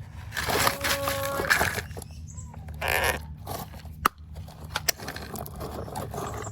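Small stones scraping and rattling in irregular bursts as a toy excavator scoops and loads them. A brief pitched tone sounds about a second in, and a sharp click comes about four seconds in.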